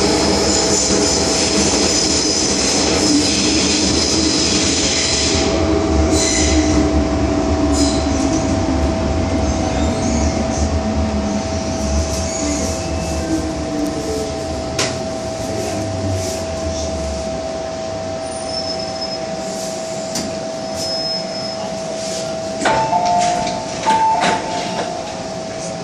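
MTR M-Train running through a tunnel: a steady low rumble and a constant whine, with a high squeal in the first few seconds. The rumble dies away about two-thirds of the way through as the train brakes into a station. Near the end come a few short tones and clunks as the doors open.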